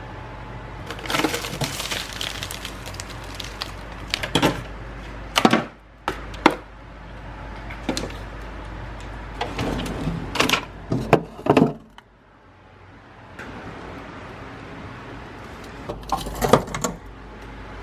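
Kitchen clatter: dishes, pans and utensils being handled, a run of irregular clicks, knocks and clinks over a steady low hum.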